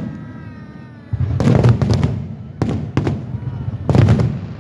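Aerial fireworks bursting overhead: a run of sharp bangs, each with a rumbling tail. There is a cluster about a second and a half in, single bangs near three seconds, and another loud cluster about four seconds in.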